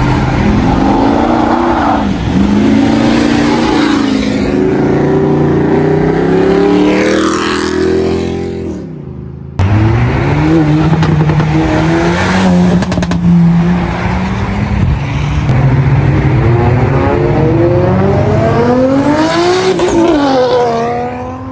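Performance car engines and exhausts accelerating away one after another, the engine pitch climbing through the revs and dropping between shifts. The sound breaks off abruptly about nine seconds in and starts again at full level.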